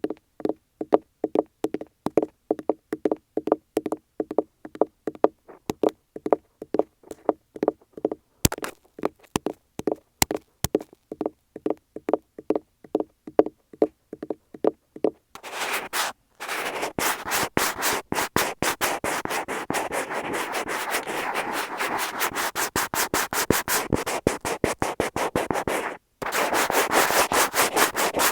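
Fingernails tapping repeatedly, a few taps a second, right on an Apple wired earphone microphone fixed to a wall, heard close and lo-fi through that mic. About halfway through the tapping stops and fingers scratch steadily across the mic and wall, with a short break near the end.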